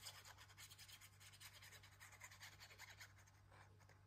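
Near silence: the faint scratching of a liquid-glue bottle's nozzle drawn along a paper strip as glue is squeezed out, over a low steady hum.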